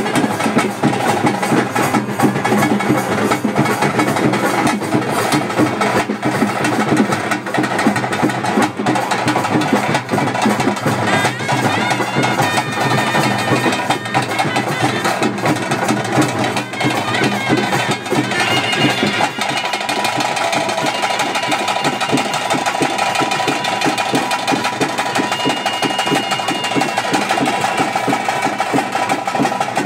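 Live ritual music: rapid, dense drumming with a steady sustained drone over it.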